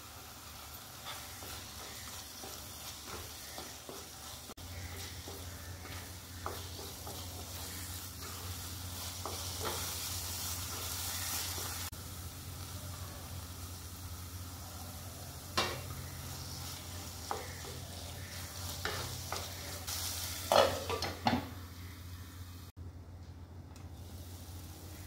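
Wooden spatula stirring and scraping a thick ground-onion spice paste in a nonstick pan as it sizzles in oil, with many small scrapes and clicks; the masala is being fried with its spice powders. A few sharper knocks come about two-thirds of the way through.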